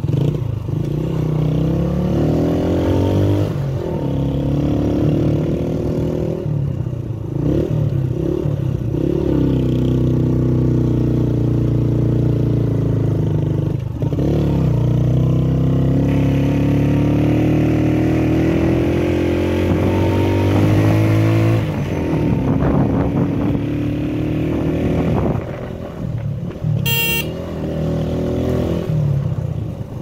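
A vehicle's engine running under way, its pitch climbing slowly and dropping back several times, as when accelerating through the gears. There is a brief sharp ticking near the end.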